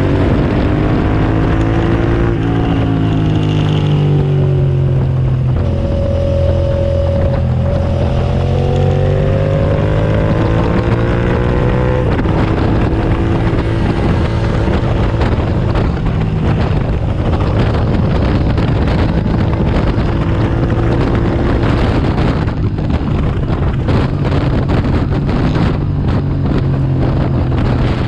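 Suzuki SV650S V-twin engine under way at track speed, its pitch climbing and dropping repeatedly as it accelerates and is shifted and slowed for corners. In the second half wind buffeting on the microphone grows louder over a steadier engine note.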